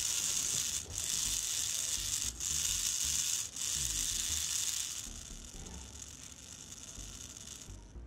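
Small geared DC motor running under joystick control, its gearbox giving a steady high whir. It cuts out for an instant three times, runs slower and quieter from about five seconds in, then stops just before the end.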